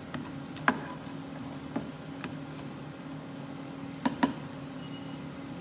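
Slotted plastic spatula knocking and scraping against a ceramic-coated frying pan while stirring a tadka of oil, dry red chilies and onion: a few sharp knocks spread out, two in quick succession about four seconds in, over a low steady hum.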